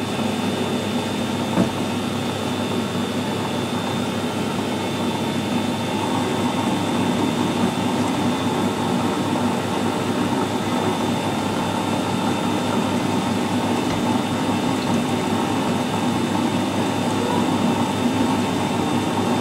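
Metal lathe running under power feed, taking a light screw-cutting pass as the tool traverses an oiled steel workpiece. The machine runs steadily throughout with a faint high whine, and there is a single click about one and a half seconds in.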